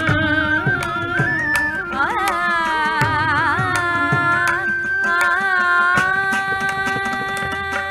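Carnatic music accompanying Bharatanatyam dance: singing with wavering, ornamented pitch over a steady drone, with scattered percussion strokes. The melody settles into a long held note about six seconds in.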